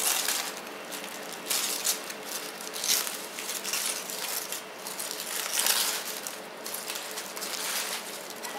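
Aluminium foil crinkling and tearing as hands peel open the foil wrapping around a barbecued whole fish, in several loud rustles.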